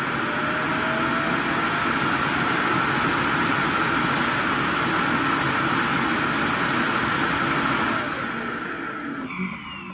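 iRobot Roomba i7+ Clean Base self-emptying the robot's dustbin into its bag, its suction fan running loud and steady. About eight seconds in the fan winds down with a falling whine.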